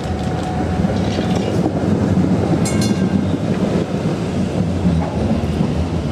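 Historic PCC tram passing close by on grass-covered track: a steady low rumble of wheels and motors on the rails, with a brief high tone about two and a half seconds in.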